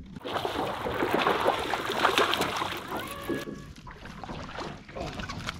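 Water splashing and sloshing for about three seconds, then settling.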